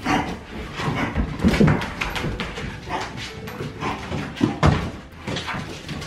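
Siberian huskies, an adult and its seven-week-old puppies, playing rough: short yips and whines among scuffles, with a few sharp thumps about one and a half and four and a half seconds in.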